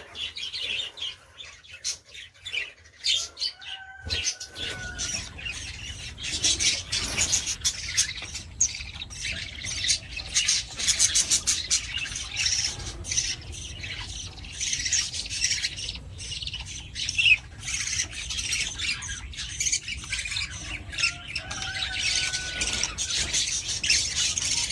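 A dense, continuous chatter of small parrots, likely budgerigars, squawking and chirping quickly over one another. A short clear whistled note cuts through about four seconds in, and again near the end.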